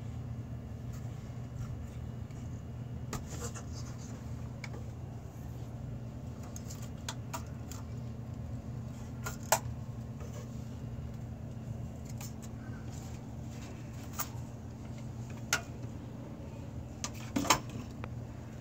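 Scattered clicks and knocks of a pole and hands working among wooden attic rafters, over a steady low hum. The sharpest knocks come about halfway through and near the end.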